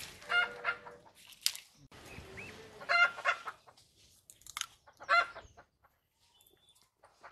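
Chickens clucking in short bursts of calls, several times over a few seconds.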